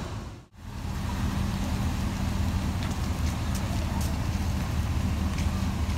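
Utility-body pickup truck's engine running close by, a steady low hum, after a brief dropout about half a second in.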